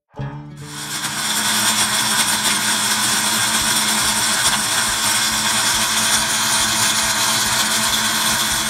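Blender motor starting suddenly and running steadily, dry-grinding peanuts, roasted chana dal and dried red chillies to a coarse powder in its glass jar.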